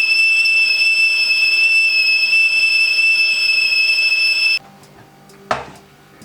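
Stovetop kettle whistle sounding one steady, loud, high-pitched whistle over a steam hiss, cutting off abruptly about four and a half seconds in. A few faint knocks follow.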